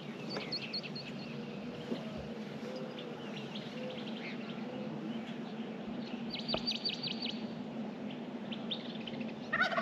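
Birds chirping, with a quick rattling run of chirps about six seconds in, then a wild turkey tom gobbling near the end.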